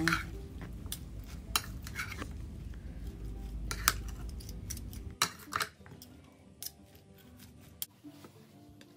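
A fork and spoon tossing a salad in a bowl: soft scraping and squishing of lettuce with several sharp clinks of the utensils against the bowl, the loudest about four seconds in. The clinks die away after about five seconds.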